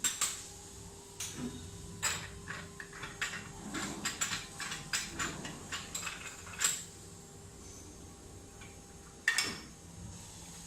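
Metal tools and parts clinking and knocking against each other and a hard surface: a busy run of clinks for the first six seconds, then a single louder knock near the end.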